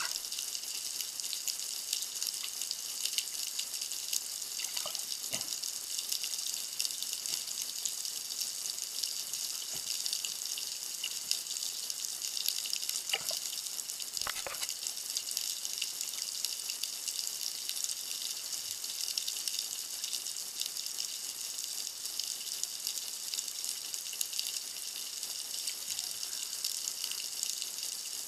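Underwater ambience picked up through a camera's waterproof housing: a steady, dense crackling hiss of the sea, with a few faint knocks, two of them close together near the middle.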